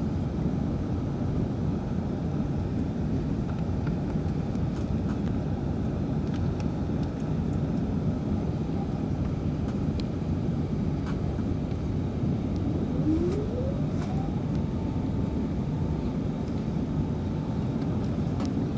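Airliner cabin noise: a steady engine and airflow rumble with a few light rattles. About two-thirds of the way through, a whine rises and then holds at a steady pitch, like jet engines spooling up.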